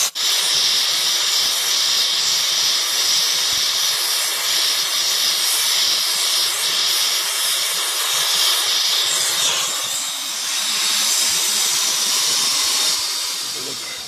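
Brazing torch flame hissing steadily on a copper refrigerant line joint, fading away near the end.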